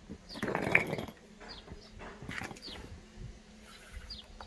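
A short metallic clatter of workshop parts being handled, loudest about a second in, followed by lighter knocks and a few faint, high, falling chirps.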